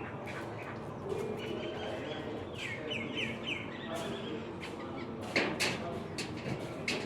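A bird calling a quick run of about five falling chirps about three seconds in, over steady background noise; a few sharp clicks follow near the end.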